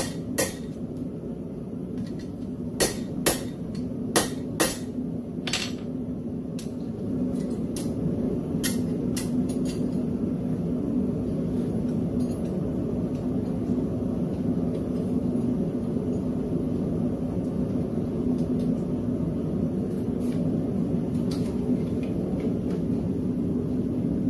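Ball-peen hammer striking a railroad spike held in tongs on an anvil: about six sharp, ringing blows in the first six seconds, then a few lighter taps, after which the hammering stops. A steady low drone of shop equipment runs underneath.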